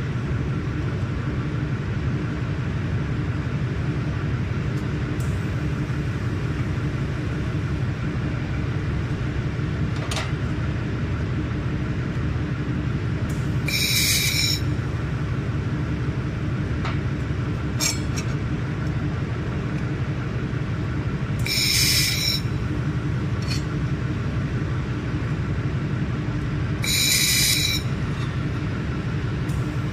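1 kW handheld laser welding gun firing three short welds on stainless steel, each about a second long, a hissing buzz with a few steady tones in it. A steady low machine hum runs underneath, with a few faint clicks between the welds.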